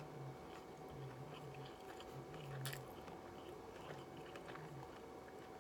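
Faint chewing of a mouthful of crispy shrimp tempura sushi roll, with soft crunches and one sharper click about two and a half seconds in.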